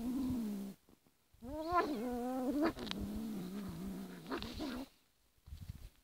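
Domestic cat with a great spotted woodpecker in its mouth, giving a low moaning growl-yowl, the guarding growl of a cat over its catch. A long held moan breaks off just under a second in, then after a short pause comes a rising yowl that settles into a lower, steady growl for about two seconds, with a brief gap near the end.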